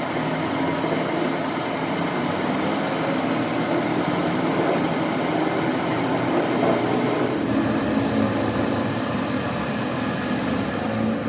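Metal lathe running with a steady mechanical noise.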